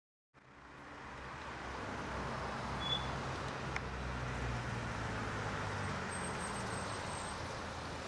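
Street traffic: a motor vehicle's engine hum over steady road noise, swelling to its loudest about halfway through and then fading, with a couple of small clicks.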